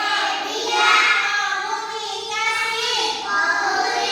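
A child singing a melody in a high voice, holding long notes.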